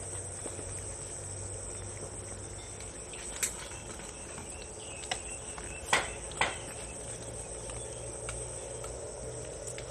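Steady high-pitched insect chirring, like crickets, with a few sharp clicks and knocks about three and a half, five and six seconds in.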